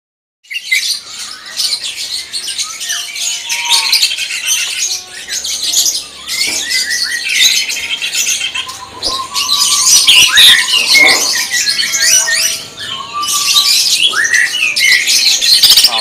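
A caged cucak ijo (green leafbird) singing loudly in a fast, varied stream of chirps, whistles and trills. This is the rapid song that keepers call "tembakan". It starts about half a second in.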